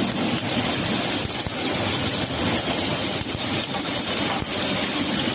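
Welding arc of a trackless fillet welding tractor laying a horizontal fillet weld: a steady, even hiss with a fine crackle running through it.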